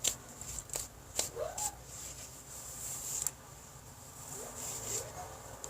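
A few sharp clicks and short hissy rustles close to the microphone, with a few faint short rising whines in the background.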